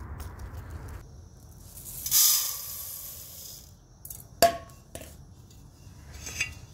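Dry rice grains poured into a metal pot: a hissing rush of grains lasting about a second and a half, then a sharp metallic clink with a brief ring, followed by a softer tap.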